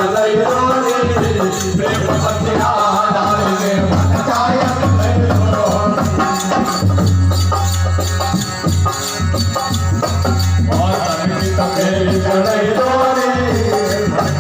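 Devotional bhajan singing: a voice sings a wavering melody over rattling hand percussion and a heavy, steady bass.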